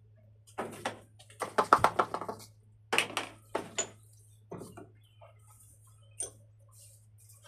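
Hand tools and containers clinking, tapping and scraping in short bursts, with a quick run of clicks about two seconds in, as sugar propellant is loaded into a homemade rocket tube.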